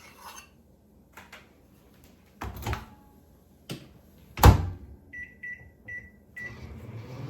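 Microwave oven being set to melt butter: a few knocks, the loudest about four and a half seconds in as the door is shut, then four keypad beeps at one pitch, then the oven starts running with a steady hum.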